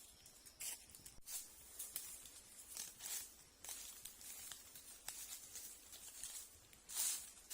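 Irregular rustling and scraping of hands working natural building materials such as plant strips or clay, with a louder scrape near the end.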